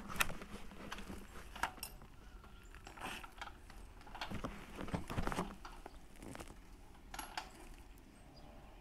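Scattered metallic clinks and knocks of a wrench working the rear axle and chain adjusters of a Harley-Davidson motorcycle while its drive chain is tightened.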